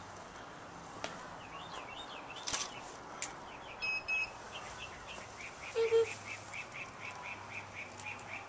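Bird chirping: short chirps repeated about three times a second through the second half, with some gliding chirps earlier and a few brief tones and clicks near the middle.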